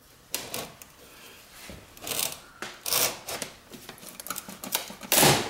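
Metal blade of a painter's multi-tool scraping and prying at a painted wooden window molding: a series of short scrapes and creaks of metal against wood, the loudest near the end, as the trim is worked loose.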